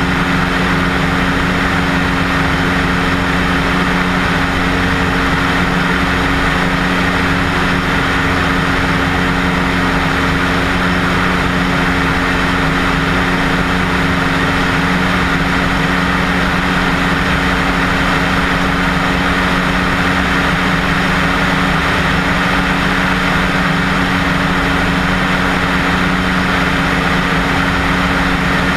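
A single-engine Cessna's piston engine and propeller in steady cruise flight: an even, unchanging drone with a constant low hum over a rushing noise.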